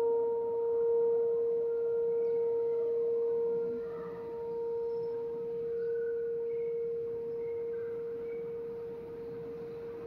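Federal Signal 2001-130 electromechanical outdoor warning siren sounding its steady alert signal: one held pitch that swells and fades as the rotating horn sweeps past, growing slowly fainter overall.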